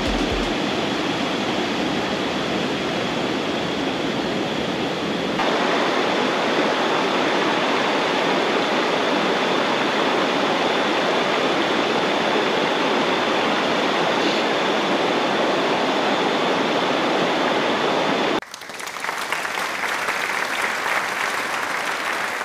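Steady rushing noise of flowing water. About eighteen seconds in it cuts suddenly to a denser crackling hiss.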